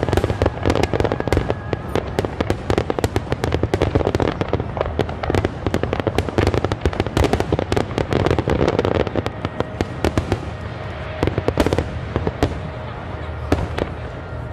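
Fireworks display: a dense, rapid run of bangs and crackles from many shells bursting at once, thinning out about twelve seconds in.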